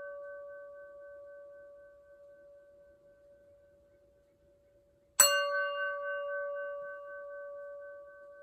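Singing bowl struck with a wooden mallet, ringing with one steady tone and a wavering upper overtone as it fades, then struck again about five seconds in and ringing out anew. The bowl marks the end of the final resting pose.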